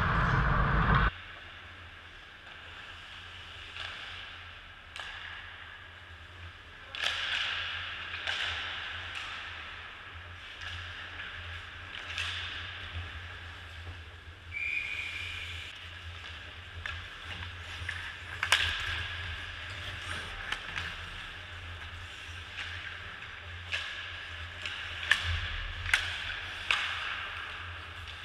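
Ice hockey rink sounds heard from the goalie's position: skate blades scraping the ice and sharp clacks of sticks and puck, scattered through the stretch, over a steady low arena hum. A loud rushing noise fills the first second and cuts off abruptly, and a brief high tone sounds about halfway through.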